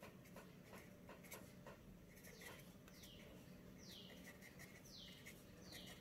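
Faint scratching of a pen writing on paper, then, from about two seconds in, a bird's short falling call repeated roughly once a second.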